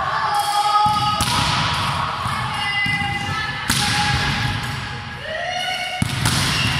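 Volleyball spikes: three sharp smacks of a hand on the ball, about two and a half seconds apart, echoing in the hall, with short squeaks of shoes on the court floor between them.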